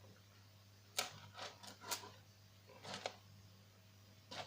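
A few light, sharp clicks and taps of small metal jewellery parts and tools being handled, scattered irregularly, over a faint steady low hum.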